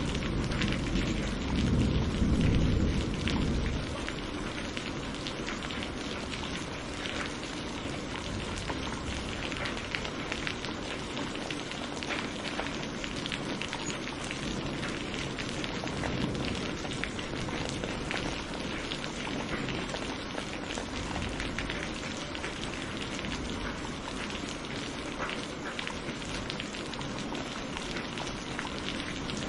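Steady heavy rain falling and pattering on surfaces, with the low rumble of a thunderclap dying away in the first few seconds.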